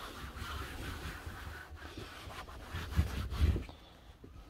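Microfibre cloth rubbing back and forth over a van's plastic front grille, wiping it down with panel wipe degreaser before the trim is dyed. About three seconds in there are two dull low thumps, and then the rubbing stops.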